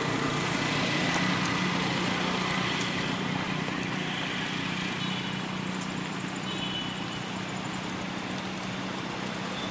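Steady outdoor background hum and hiss, with a few faint, short high-pitched chirps in the middle.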